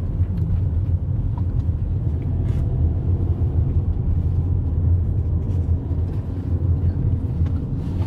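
Steady low rumble of a car driving, heard from inside the cabin: engine and tyre road noise.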